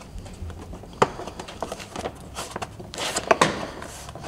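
CFMOTO UFORCE 1000's hard plastic side panel being pushed and worked by hand onto the cab pillar: a sharp knock about a second in, then a cluster of plastic clicks and knocks around three seconds in.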